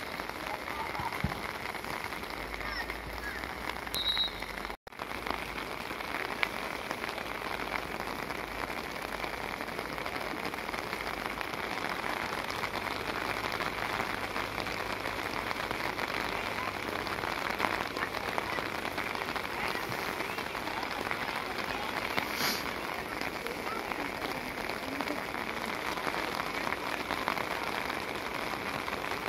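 Steady rain falling, an even hiss, with a brief dropout in the sound about five seconds in.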